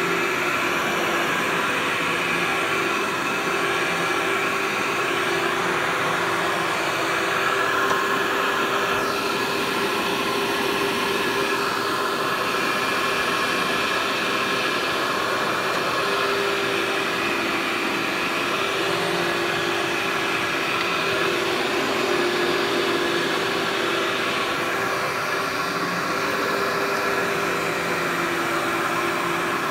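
Upright vacuum cleaner with a clear dust canister running steadily on carpet: a constant motor whine over a rushing hiss. The hiss shifts slightly about a third of the way in and again near the end.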